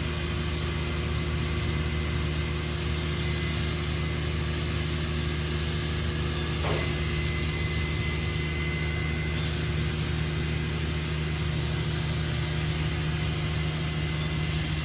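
Steady low mechanical hum of a running machine, constant throughout.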